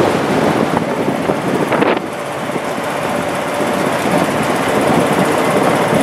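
A vehicle driving along a road, with engine and road noise and wind buffeting the microphone. The sound drops slightly in loudness about two seconds in.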